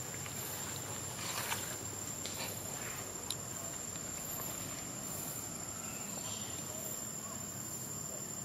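Insects trilling steadily in one continuous high note, with a few faint brief rustles.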